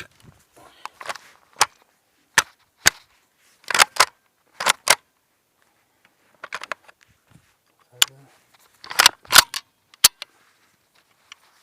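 Gunfire: a dozen or so sharp gunshot cracks at uneven intervals, some single and some in quick pairs, the loudest around four and nine seconds in.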